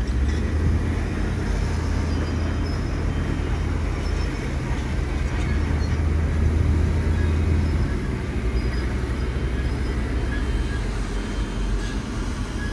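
Heavy diesel earthmoving machine engine running with a deep steady drone that eases off about eight seconds in.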